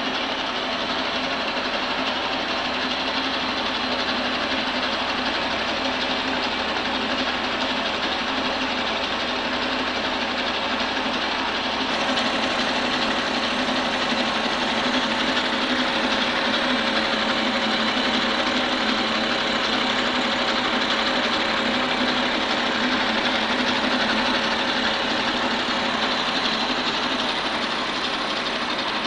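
Milling machine cutting a pocket in a metal block with a 30 mm end mill: the spindle's steady tones under a dense, continuous cutting noise. The cutting noise grows slightly louder about twelve seconds in.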